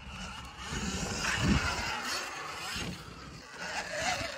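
Sur-Ron electric dirt bike riding over dirt and grass: a faint motor whine under tyre and wind noise, with a dull thump about a second and a half in.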